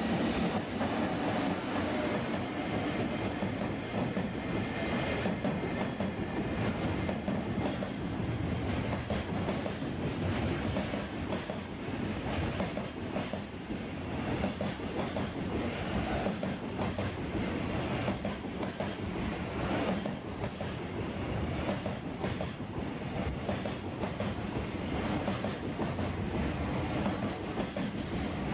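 Long freight train rolling steadily past, its wagons' wheels clattering over the rail joints in a continuous stream of clicks.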